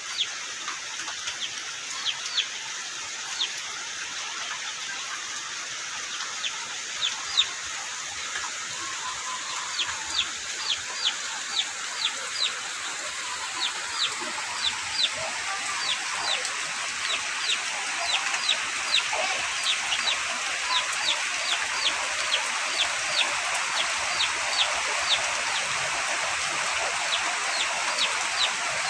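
Chicks peeping over steady rain: short, high, downward-falling peeps, one or two a second, over a continuous hiss of rainfall that slowly grows louder.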